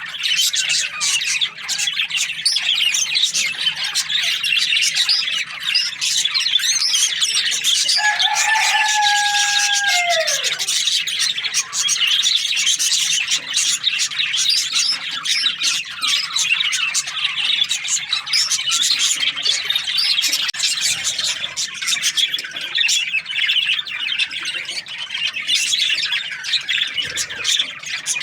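A flock of budgerigars chattering and chirping continuously. About eight seconds in, a longer, steady, lower call is held for roughly two seconds and then drops in pitch at the end.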